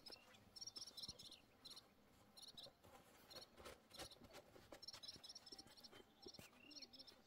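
Faint cricket chirping: short pulsed chirps repeating in uneven runs, with scattered light clicks.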